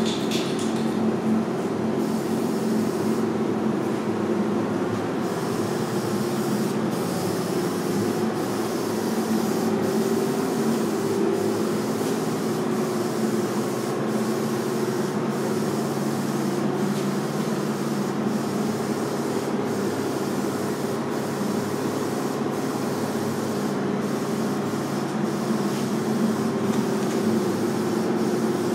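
Steady hum with rushing air from a paint booth's ventilation fan, holding constant throughout.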